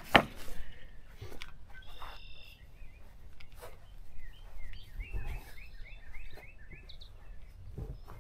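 Birds chirping outdoors: a couple of short calls, then a quick run of descending chirps midway, over light background noise. A sharp knock right at the start is the loudest sound, with a few softer knocks after it.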